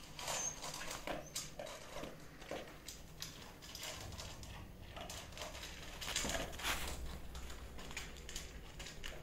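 Dogs moving about in and around a wire dog crate: irregular clicks, scrapes and rattles, busiest about six seconds in.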